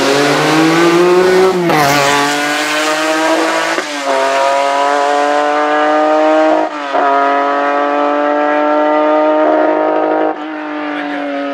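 Lancia Stratos HF Group 4's mid-mounted Ferrari Dino V6 at full throttle, accelerating away and shifting up four times. The engine note climbs through each gear and dips at each change, and it is a little quieter after the last shift near the end.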